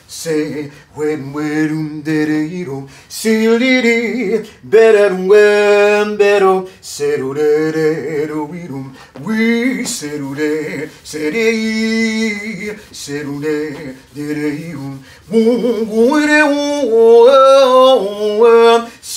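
A man singing a wordless melody, with several long held notes wavering in vibrato.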